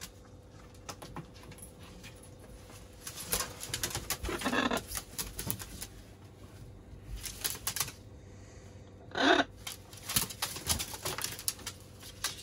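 Macaws on a hard counter: beaks and claws click and tap, wings flap in short bursts, and there are two short calls, about four and nine seconds in.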